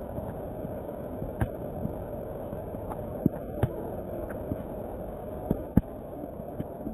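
Steady rush of a muddy flash-flood torrent after a thunderstorm, with several sharp knocks scattered through it.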